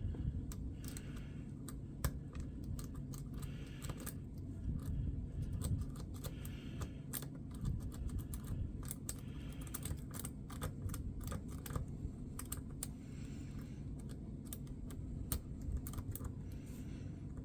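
Small, irregular metallic clicks and scrapes of lock tools working a Schlage lock cylinder, as it is picked and shimmed open for rekeying.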